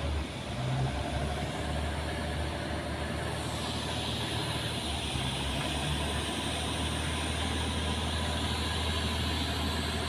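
Small tanker's diesel engine running with a steady low drone as the ship passes close by, with a hiss over it that grows a little brighter about halfway.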